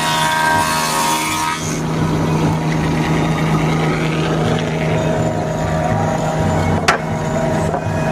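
Spindle moulder running with a steady motor hum; for about the first second and a half its cutter is in the wood with a dense high whine, then the machine runs on without cutting. There is a single sharp click near the end.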